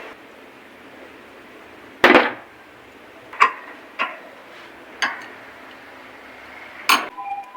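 Metal tools or parts knocking and clinking during engine work, five sharp strikes spread over several seconds, the first the loudest.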